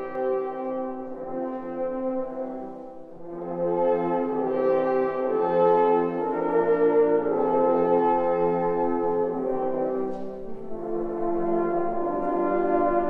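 Brass ensemble led by French horns playing sustained chords: soft at first, then fuller and louder from about three and a half seconds in.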